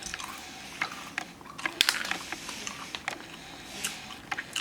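Irregular small clicks and crackles close to the microphone as candies are handled and chewed.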